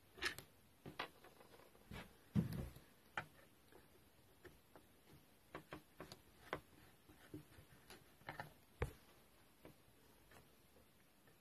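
Scattered light clicks and knocks of hand tools and strimmer parts being handled, irregular, with a louder knock about two and a half seconds in.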